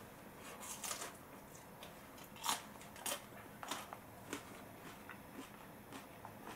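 Wooden spoon clicking and scraping against a small bowl of rice porridge as it is handled and scooped, with a few sharp clicks a little over half a second apart near the middle.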